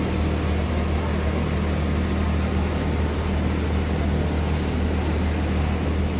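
Steady low hum of garment-factory machinery, an even drone with no breaks or changes.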